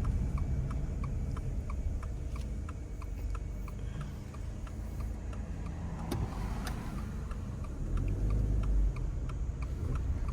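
Car turn-signal indicator ticking steadily, about three ticks a second, over the low rumble of the car's engine and tyres inside the cabin.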